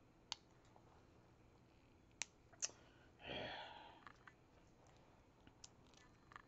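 Faint, scattered clicks and taps of a plastic liquid lipstick tube being handled, with one brief rustling swish a little over three seconds in.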